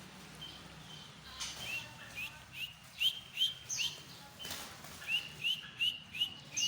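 A songbird singing a run of short, clear whistled notes, each with a quick downward bend, repeated about two to three times a second with a short break near the middle.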